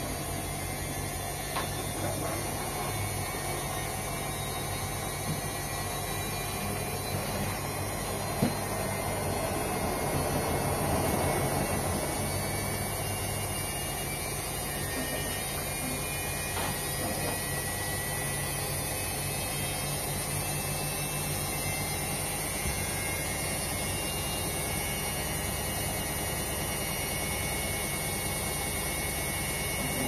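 Front-loading Indesit washing machine running a wash cycle: a steady motor hum as the drum turns the load. There is a sharp tick about eight seconds in, and the sound swells briefly a couple of seconds later.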